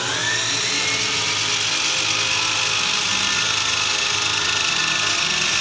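Handheld electric power saw spinning up at the start, then running steadily as it cuts through a board.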